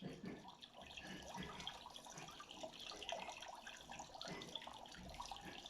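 Water fountain splashing: a steady, faint patter of falling water that starts abruptly.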